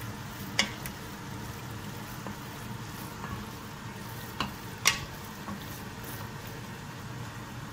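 Wooden spoon stirring freshly drained, lightly oiled galuska dumplings in a pot, with a few sharp knocks of the spoon against the pot, the loudest about two-thirds through, over a steady low hum.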